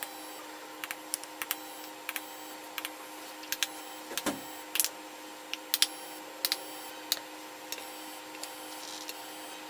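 Small plastic buttons on a wireless calling pager and receiver being pressed, a run of irregular clicks, some in quick pairs, over a steady faint electrical hum.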